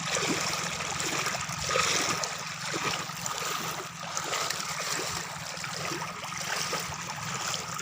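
Floodwater running steadily, with continual gurgling and bubbling.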